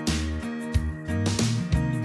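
Instrumental background music: pitched notes over a changing bass line, with a steady beat.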